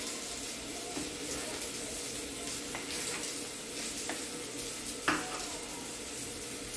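Steady sizzle of red onion and chickpeas frying in butter and olive oil in a pan. A few light knife taps on a plastic cutting board as a banana is sliced, the loudest near the end.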